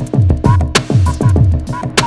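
Electronic background music with a steady drum-machine beat of deep kick drums and sharp snare hits.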